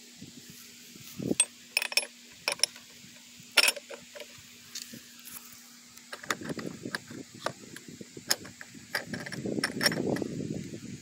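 Metal spark plug wrench being handled: a few sharp clicks and clinks in the first four seconds. From about six seconds in comes close rubbing and rustling, with scattered clicks, as a hand works in around the engine.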